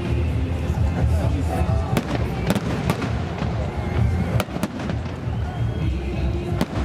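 Fireworks display: a string of sharp cracks over a continuous low rumble of bursting shells, with voices and music mixed in.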